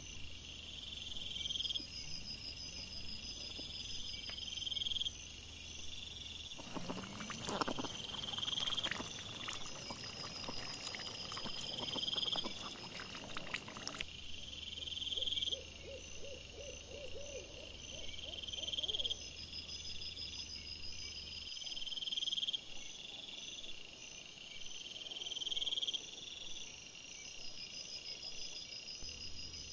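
A night chorus of high chirping calls, repeating roughly once a second over a steady hiss. A brief rising call comes about seven seconds in, and a quick run of lower pulses follows about halfway through.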